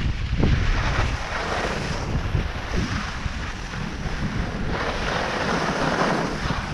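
Wind buffeting the microphone of a moving skier, with the steady hiss of skis sliding and carving over groomed snow, the hiss swelling a little about five seconds in.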